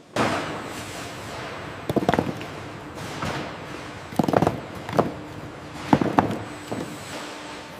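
Steady hiss of background machinery with a faint low hum, broken by a series of knocks and thuds, several coming in quick pairs, about two, four, five and six seconds in.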